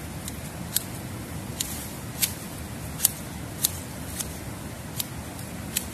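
A pair of hand shears snipping through overgrown bankside vegetation. Each cut is a sharp snip, about one every half second to a second.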